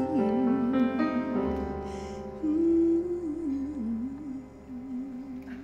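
A woman's voice singing long wordless notes with a wavering vibrato over piano chords, the closing phrase of a slow ballad; the piano dies away near the end.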